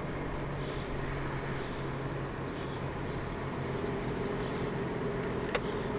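Steady low mechanical rumble with a low steady hum; a higher steady tone joins a little past halfway, and one sharp click sounds near the end.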